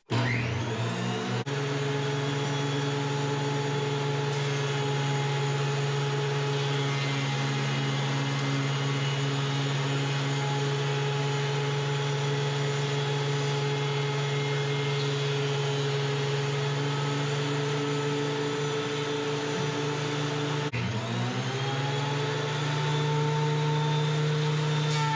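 DeWALT DW734 thickness planer's motor starting and spinning up to speed, then running with a steady whine. About 21 seconds in it dips and spins back up to speed.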